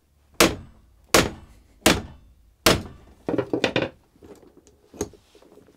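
Four sharp blows about three quarters of a second apart: a claw hammer striking a hammer-operated crimping tool, crimping a copper lug onto a battery cable.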